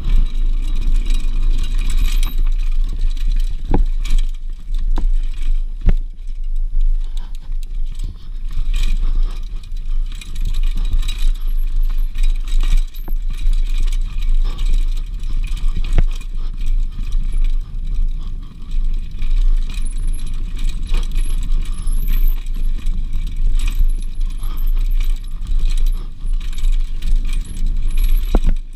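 Mountain bike riding fast down a dirt trail, heard from a camera on the bike: a steady wind rumble on the microphone with the bike's frequent rattling and clicking over bumps.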